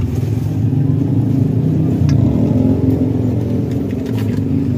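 Steady low engine rumble of motor traffic, with a slight rise in pitch near the middle, and a few faint clinks of a plastic spatula against a stainless steel mixing bowl.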